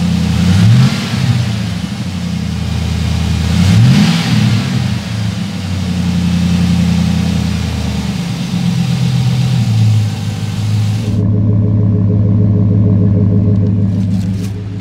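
2006 Chevy Silverado 1500's engine running with a new AEM DryFlow dry air filter, revved twice in the first few seconds and then settling to a steady idle. A loud airy rush sits over the engine and cuts off suddenly about two-thirds of the way through.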